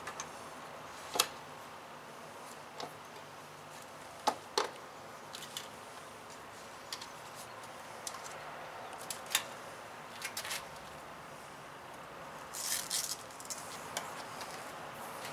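Metal kickstand legs of a folding portable ZAMP solar panel being unfolded and set, giving a handful of sharp clicks and clacks spaced a few seconds apart, with a short rattle about two-thirds through as the panel and its cable are handled.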